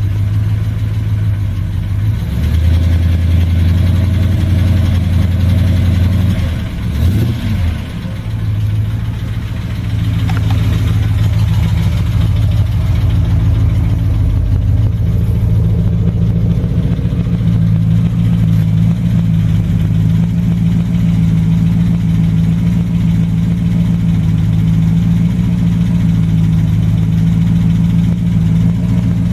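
5-litre V8 engine idling shortly after a start; a few seconds in its note wavers and dips for a moment, then it settles into a steady idle. The owner says its lifters are worn and the engine is tappy.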